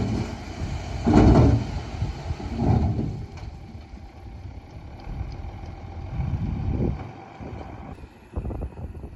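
Diesel engine of earthmoving machinery working under load, a steady low rumble that surges louder about a second in, again near three seconds and near seven seconds.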